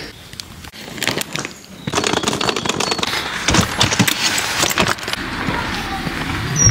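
Handling noise from packing: a run of short clicks, knocks and rattles, sparse at first and busier from about two seconds in, as shoes and a suitcase are handled and loaded into a car boot.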